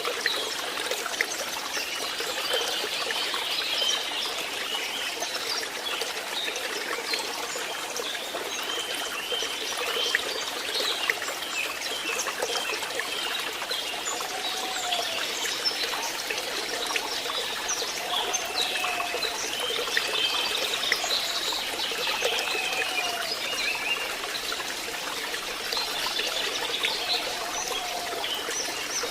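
Stream water trickling and babbling steadily, with a constant splashing and many small bubbling blips.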